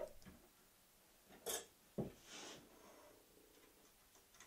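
Near silence, with a few faint handling sounds: a soft rustle about a second and a half in and a light knock about two seconds in.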